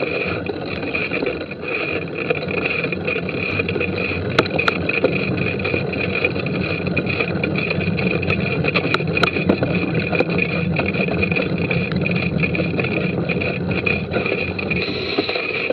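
Mountain bike ridden along a dirt forest trail, heard up close from the rider's on-bike camera. A steady rumble of tyres and rushing air runs throughout, with sharp rattles and knocks from the bike over bumps, clustered around four and nine seconds in.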